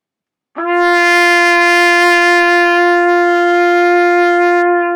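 A trumpet playing one long, steady note, starting about half a second in and held for about four and a half seconds before stopping near the end: a beginner's first sustained note, made by buzzing the lips into the mouthpiece.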